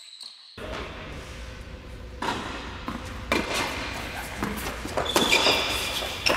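Tennis rally in an echoing indoor hall: sharp racquet hits and ball bounces, with short high shoe squeaks on the hard court near the end.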